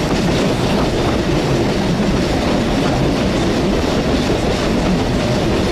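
PeruRail passenger train running along the track, its wheels rumbling steadily on the rails, heard with the camera held outside the carriage window.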